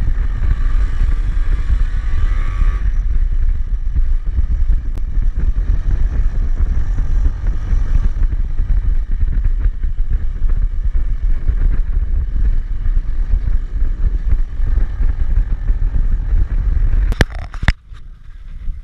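Bajaj Pulsar NS200 motorcycle riding at speed: its single-cylinder engine under a heavy rush of wind on the helmet camera, with the engine pitch rising over the first few seconds. Near the end, a few sharp knocks, then the loud noise drops away.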